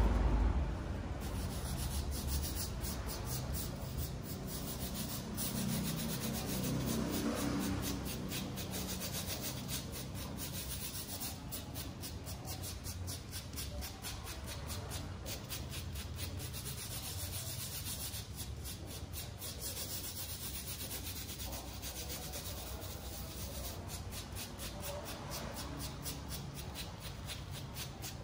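Fingers and palm rubbing coloured sand into the sticky surface of a sand-art card, a dry scratchy rubbing in quick repeated strokes.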